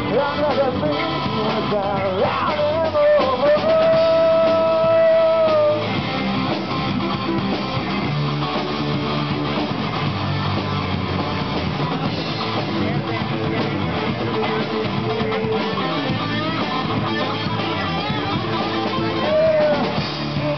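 Live rock band playing: electric guitars and a drum kit, with a singer holding one long note about three to six seconds in, followed by an instrumental stretch of guitars and drums.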